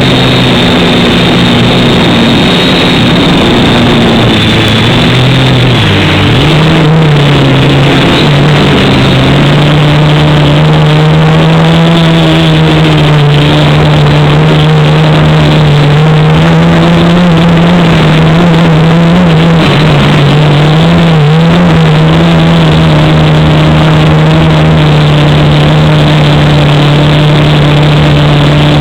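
Quadcopter's electric motors and propellers running with a loud, steady hum, the pitch stepping up about six seconds in and wavering briefly near the two-thirds mark as the throttle changes.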